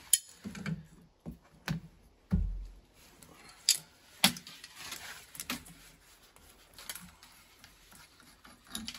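Scattered clicks and knocks of small parts and tools being handled at an open shower valve, with a dull thump about two and a half seconds in.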